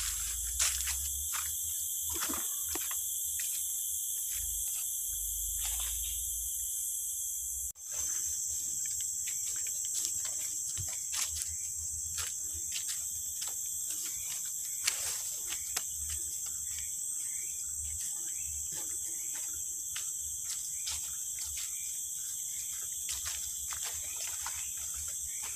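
Steady, high-pitched chorus of tropical forest insects, with irregular footsteps and brushing through leaves on a wet trail. The sound drops out briefly about eight seconds in.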